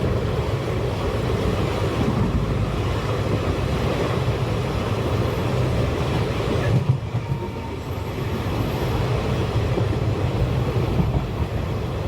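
Passenger train running on the rails, a steady heavy rumble and rattle of wheels on track. A brief knock comes about seven seconds in, and the sound drops slightly for about a second before it picks up again.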